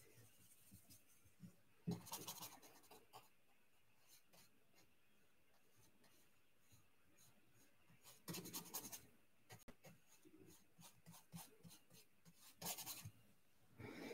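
Faint scratchy brushing of a watercolour paintbrush worked over paper, in a few short bursts of strokes: one about two seconds in, one a little past the middle and one near the end.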